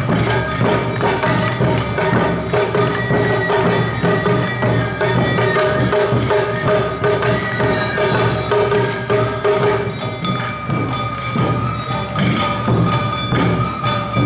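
Live Awa Odori festival music played by a narimono band: drums and clanging kane gongs beating a steady, driving rhythm, with held melody notes sounding over the percussion.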